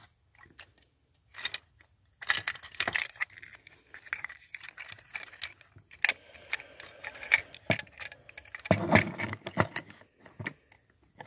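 Hard plastic toy parts of a Transformers action figure being handled: quick clicks and rattling as the small plastic guns are fitted into the figure's ports. It starts about two seconds in.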